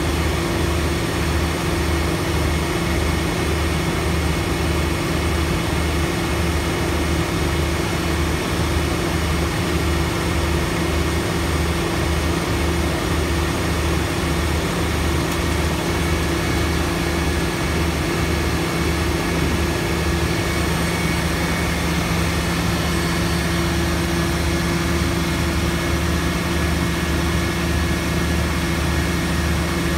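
A large engine running steadily, with a low hum that pulses regularly.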